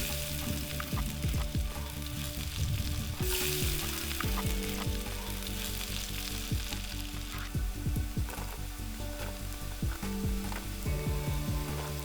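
Fried rice with seafood sizzling in a hot pan while a spatula stirs and scrapes it, giving many short scraping clicks over a steady hiss. The sizzle briefly grows louder about three seconds in.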